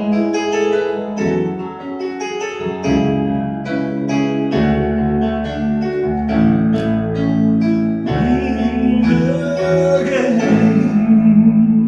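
Live acoustic song: an accompaniment of plucked notes, joined about two-thirds of the way in by a singer's voice holding a long wavering note.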